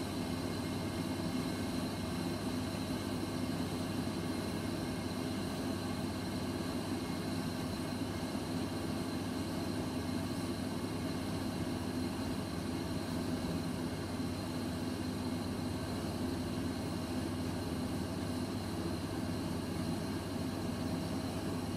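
Dainichi kerosene fan heater running steadily: an even fan and burner rush with a low hum and a faint high whine.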